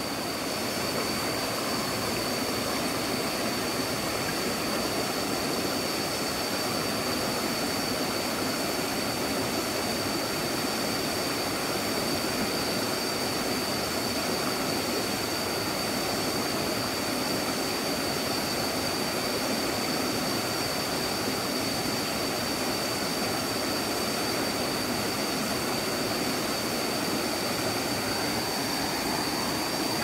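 Shallow forest stream rushing steadily over rocks and small cascades. A thin, steady high whine sits over the water throughout.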